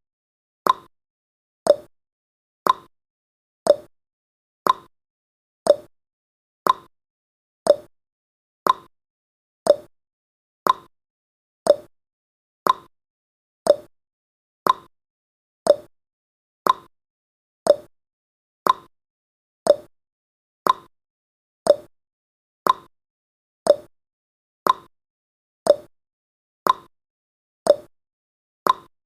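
Clock ticking sound effect of a countdown timer: evenly spaced ticks about once a second, alternating between a higher and a lower click in a tick-tock pattern.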